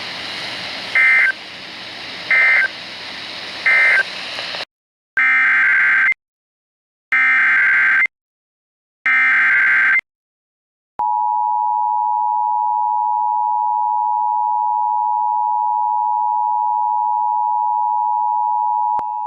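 Emergency Alert System tones. Over radio hiss come three short end-of-message data bursts. Then three one-second screeching SAME header data bursts, evenly spaced, are followed by the steady two-tone EAS attention signal, held for about eight seconds.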